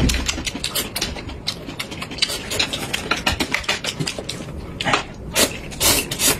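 Scallion oil noodles being slurped and chewed: a dense run of rapid wet clicks, with two longer slurps near the end.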